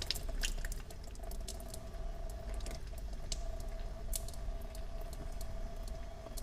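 Brake fluid dripping and spattering from an open brake bleeder screw as the brakes are pressure-bled, irregular drips and splashes over a steady hum. The bleeder is being left open until clean new fluid runs out.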